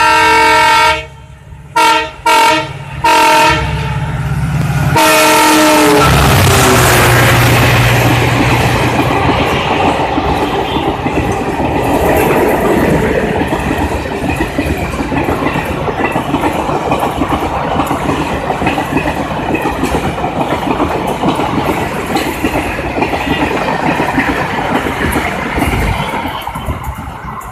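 Indian Railways Kaviguru Express passing through a station at full speed. Its locomotive horn sounds a blast, then three short toots, then another blast whose pitch drops as the engine goes by. The coaches follow with a loud, long rush of wheel and rail noise that fades near the end.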